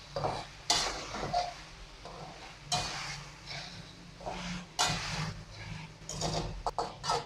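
A metal spoon stirs and scrapes chicken pieces and whole spices around a metal wok, in separate strokes every second or two with a few quick ones near the end. The chicken frying in oil gives a light sizzle underneath.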